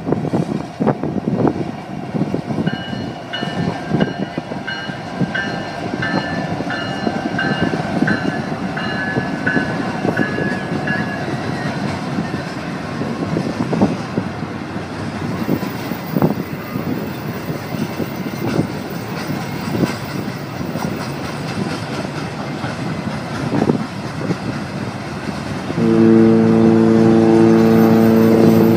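Long double-stack container freight train rolling past, a steady rumble of wheels on rail with scattered clicks. A rhythmic high ringing pulses through roughly the first ten seconds, and a loud, steady low horn blast starts near the end.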